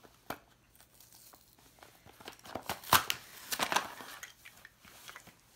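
Toy box being opened by hand: packaging rustles, crinkles and tears with scattered sharp clicks. It is busiest in the middle, with one loud snap about three seconds in.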